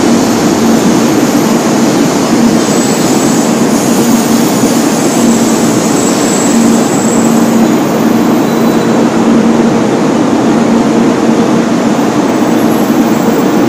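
Shinkansen bullet train running alongside a station platform: a loud, steady rushing noise with a faint low hum beneath it.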